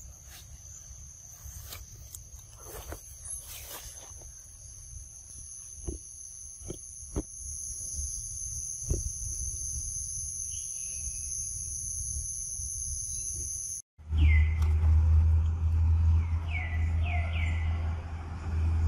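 Outdoor forest ambience with a steady high-pitched insect drone and a few soft clicks. About fourteen seconds in, it cuts to a loud steady low rumble with several short falling chirps over it.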